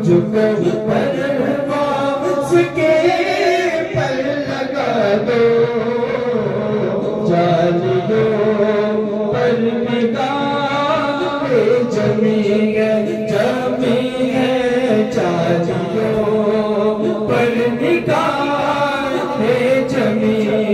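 A man singing a devotional Urdu chant into a microphone, in long drawn-out melodic lines.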